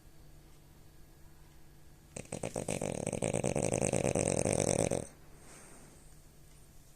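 A French bulldog snoring: one long, fast-rattling snore about three seconds long. It starts about two seconds in, builds louder and cuts off suddenly.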